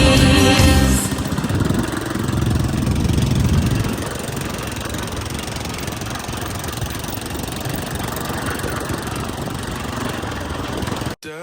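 A song fades out about a second in. An off-road motorcycle engine then runs steadily for the rest of the stretch and cuts off abruptly near the end.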